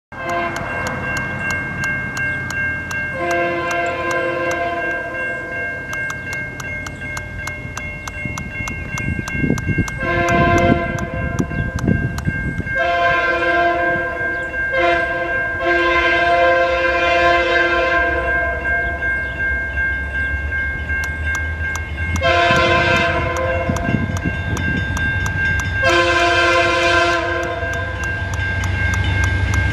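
Grade-crossing warning bell ringing with rapid, even dings, while the approaching diesel locomotive's air horn sounds a series of long and short blasts for the crossing. A low train rumble builds in the second half.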